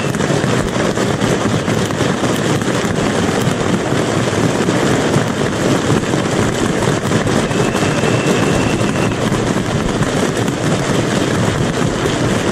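Crowd applauding, a dense steady clapping of many hands.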